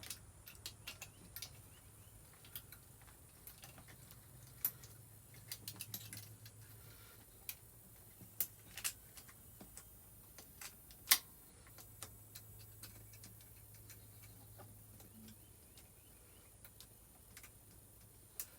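Scattered small clicks and taps of metal parts and tools being handled while a carburetor and throttle cable are fitted to a dirt bike, with one sharper click about eleven seconds in, over a faint steady low hum.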